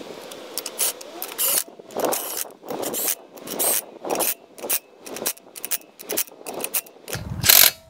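Yellow cordless drill with a socket spinning lug nuts onto a car wheel in about a dozen short trigger bursts, the longest and loudest run near the end.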